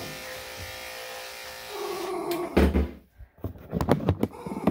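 Electric dog grooming clippers running with a steady buzz while they shave the dog's coat. About two and a half seconds in comes a low thump, and the clippers stop. Scattered short knocks and rustles follow.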